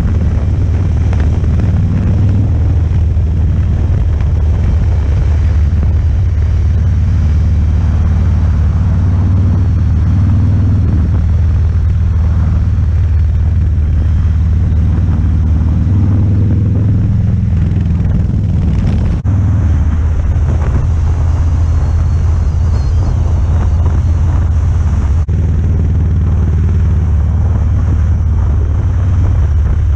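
Harley-Davidson V-twin motorcycle engine running steadily at road speed, a deep low drone heard from on the bike. The sound drops for an instant twice in the second half.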